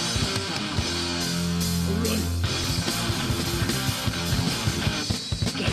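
Instrumental passage of a 1990s hardcore punk song: distorted electric guitars and drums playing, with no vocals.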